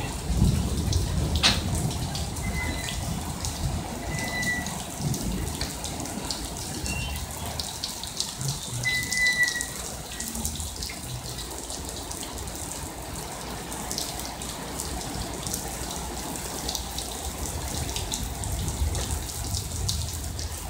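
Loaded ballast wagons rolling slowly past on wet track in the rain: a low rumble of wheels on rails with scattered clicks and a few brief high squeaks, over the steady hiss and patter of rain and running water. The rumble is stronger in the first half.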